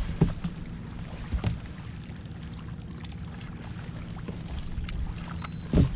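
Steady low rumble of a bass boat sitting on the water, with a few light knocks and one loud knock near the end.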